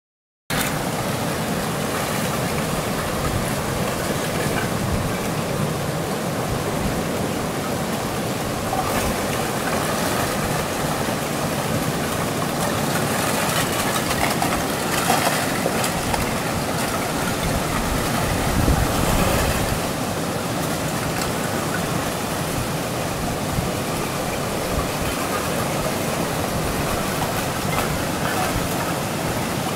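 Lake ice shove: broken plates of lake ice pushed ashore, grinding and crunching as they pile up, a continuous noisy rumble with a few louder surges.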